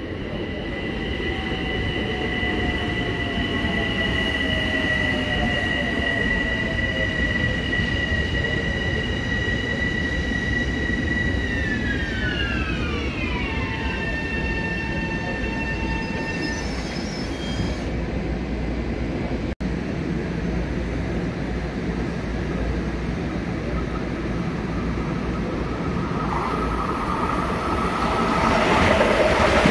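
Long Island Rail Road electric commuter trains (M7-type cars) running through on several tracks, with a steady rumble of wheels on rail. A high steady whine holds for about twelve seconds, then slides down in pitch and fades. Near the end the noise swells as another train comes close.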